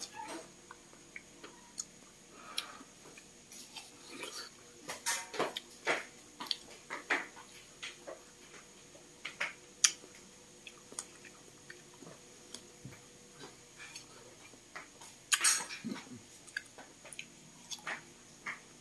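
A person eating with his fingers close to the microphone: chewing, mouth clicks and finger-licking, with scattered sharp clicks and clinks of dishes. The loudest clicks come about ten seconds in and in a short cluster about fifteen seconds in.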